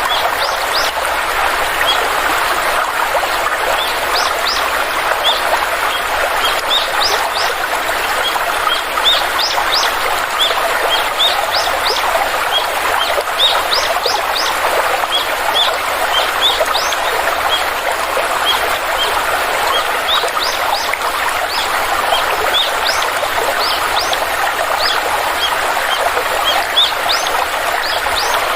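Stream water flowing steadily, with birds chirping over it throughout in many short, high, upward-sweeping chirps.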